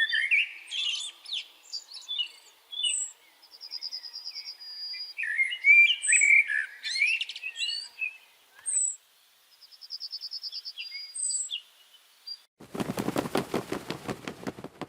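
Several small songbirds chirping and singing, with short gliding notes, high thin calls and two fast trills. Near the end a different, lower sound takes over: a rapid rattling pulse.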